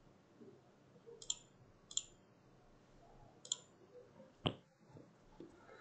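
Computer mouse clicking: three sharp clicks over about two seconds, then a louder, deeper click about four and a half seconds in.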